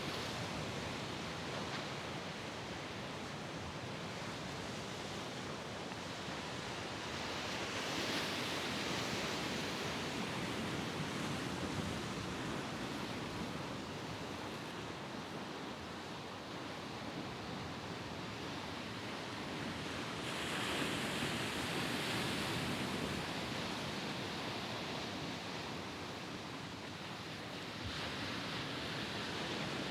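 Mediterranean sea waves washing and breaking against the shore in a steady rush of surf, swelling louder about eight seconds in, again about twenty seconds in, and once more near the end.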